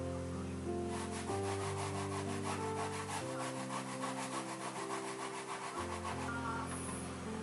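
Daikon radish being grated by hand on a grater, a fast run of even rasping strokes, about five or six a second, that starts about a second in and stops near the end, over soft background music.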